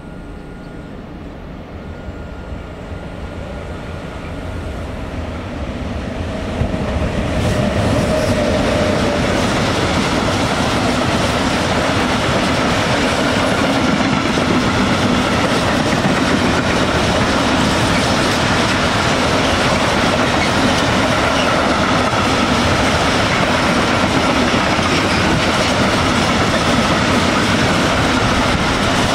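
Freight train passing: the sound grows over the first seven seconds or so, then a long string of empty flat wagons rolls by with a loud, steady noise of wheels running on the rails.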